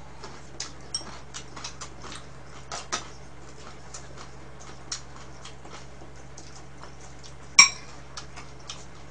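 Chopsticks clicking and tapping against bowls and plastic food containers while food is picked up, a scatter of small clicks with one sharper click near the end, over a faint low hum.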